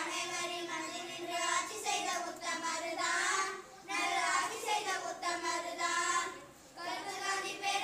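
A group of schoolchildren singing a Tamil song together into a handheld microphone, in sung phrases with short breaks about four and six and a half seconds in.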